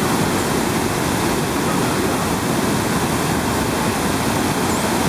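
Iguazú Falls: a steady, loud rush of water pouring down the falls and cascades.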